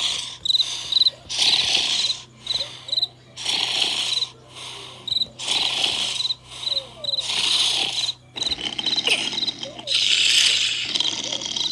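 Cartoon snoring sound effects: loud breathy snores repeating about once a second, with crickets chirping steadily underneath.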